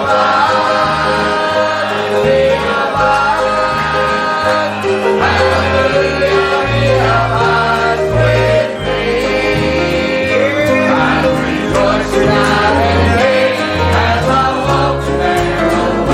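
Gospel music: a song sung by several voices together over a band with a steady bass line.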